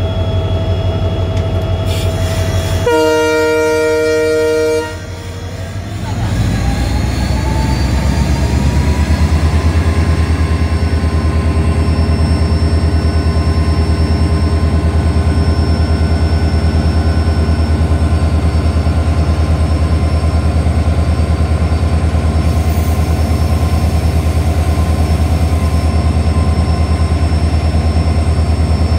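Diesel locomotive horn sounding once for about two seconds, then the locomotive's diesel engine revving up, its pitch rising over a few seconds before it settles into a steady low throb.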